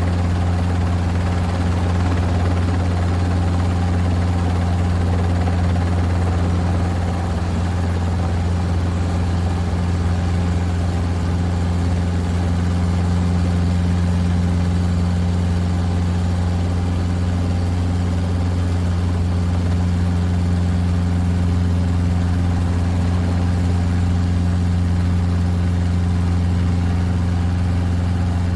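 Helicopter cabin noise: a steady low drone from the engine and rotors with a constant whine and hum above it, heard from inside the aircraft.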